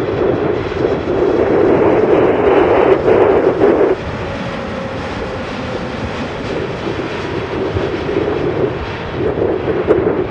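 Jet engine noise of a Boeing 747-8F's four GEnx turbofans on final approach, passing close: a steady loud rush with a strong hum in the lower middle. It drops to a lower, even level about four seconds in.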